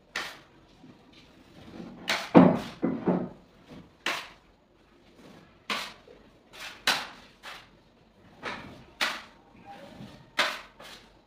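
Putty knife scraping and clicking against a small tray of ceiling putty in short, irregular strokes, with a louder run of knocks about two to three seconds in.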